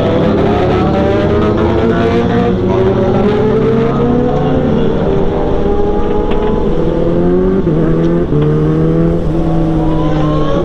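Honda CBR1000RR SP's inline-four engine pulling under light throttle, its note climbing slowly, then dropping with a gear change about eight seconds in, over wind and road noise.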